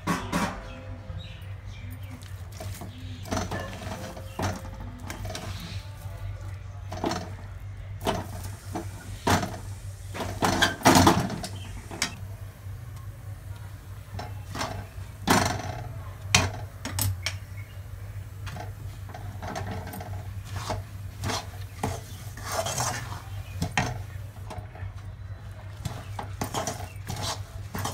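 Steel spatula scraping and knocking against a kadhai while peanuts are stirred through thick melted jaggery: irregular scrapes and clatters, loudest about eleven seconds in. A steady low hum runs underneath.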